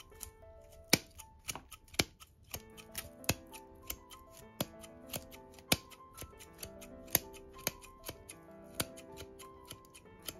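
Japanese root scissors snipping through the fine roots of a Styrax japonica during root pruning, a sharp snip about twice a second with a few louder cuts, over background music with held notes.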